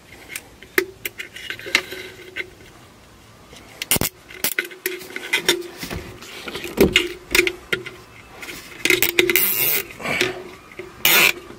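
Black plastic cable ties being handled and threaded through the mounting tab of a metal inline exhaust fan, with irregular clicks and knocks against the fan's housing, which rings briefly after several of them. There are a few longer rasps near the end, as of a tie being pulled through.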